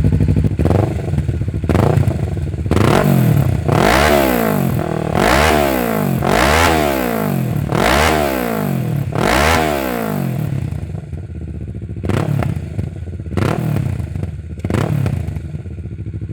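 Kawasaki Z650's parallel-twin engine breathing through an Orion full exhaust, revved at standstill: about eight quick throttle blips, each rising and falling in pitch, followed near the end by a few shorter, lighter blips between spells of idle.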